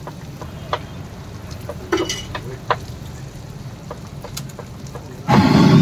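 Garlic, green chilli and spices sizzling in oil on a flat iron griddle (tawa), with scattered sharp pops and clicks. A much louder burst of noise comes near the end.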